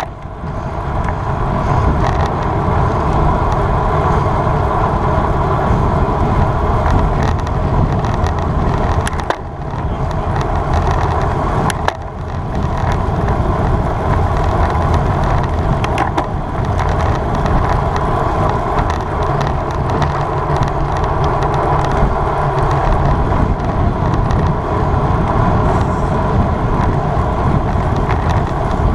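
Steady rush of wind and road noise from a road bicycle ridden at race speed, heard on the rider's camera microphone. The level dips briefly about nine and twelve seconds in.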